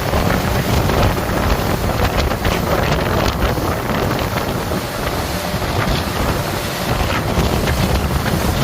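Steady wind blowing across the microphone aboard a boat at sea, a loud even rush with water noise beneath it.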